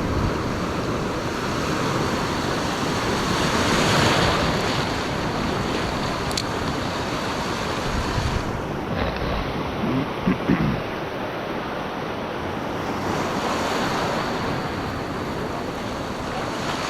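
Ocean waves breaking and washing over a rock ledge, swelling up loudest about four seconds in and again near the end, with wind buffeting the microphone.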